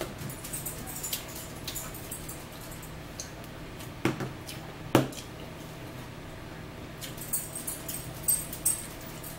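Close-up eating sounds from a meal of a burger and noodles: clusters of wet mouth clicks and smacks from chewing, with two louder knocks about four and five seconds in.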